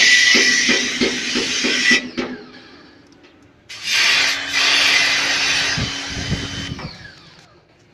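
A motorised tool running in two bursts of about three seconds, each a loud hiss, with a steady hum under the second burst.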